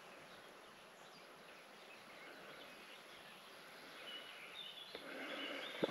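Faint woodland ambience, with a few short, high bird chirps in the last couple of seconds.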